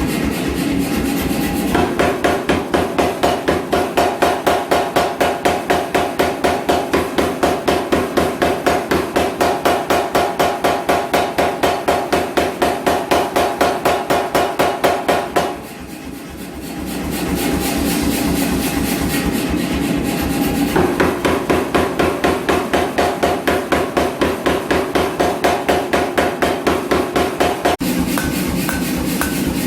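Power hammer striking hot steel in a fast, even rhythm of about four blows a second. It runs without striking for the first couple of seconds, pauses briefly about halfway through, then resumes and stops abruptly near the end.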